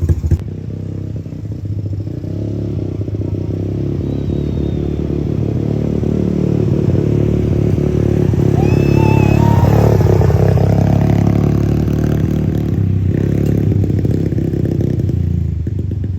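ATV engine running, growing louder until about ten seconds in and then easing off.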